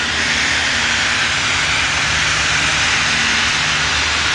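Southern Pacific 4449, a GS-4 4-8-4 streamlined steam locomotive, standing with steam hissing loudly and steadily over a low rumble, as if breathing while it waits to move.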